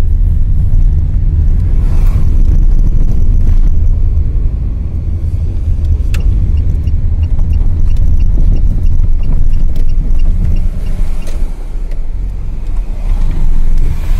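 Car engine and road noise heard from inside the cabin while driving: a steady low rumble. A faint regular ticking, about two or three ticks a second, runs through the middle.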